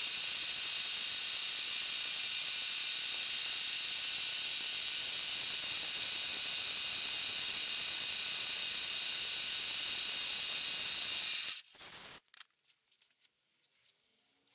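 Milling machine running with an end mill cutting the cast eccentric cap, facing off the casting's nub and gate: a steady hiss with a high steady whine. It cuts off suddenly about three seconds before the end, leaving a few faint clicks.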